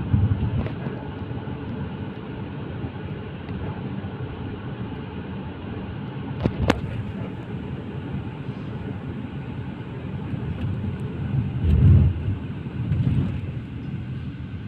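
Road and engine noise inside a moving car's cabin: a steady low rumble, with one sharp click about halfway through and a louder surge of rumble near the end.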